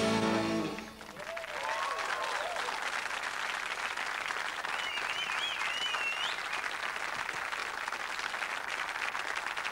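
A rock band's last chord cuts off about a second in, and a studio audience breaks into steady applause, with a cheer and a whistle rising above the clapping.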